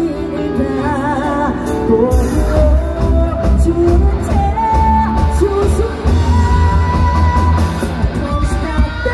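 Live rock band with a female lead singer: amplified vocals over electric guitar, bass and drums. A held, wavering sung note comes about a second in, and the drums and bass come in strongly about two seconds in.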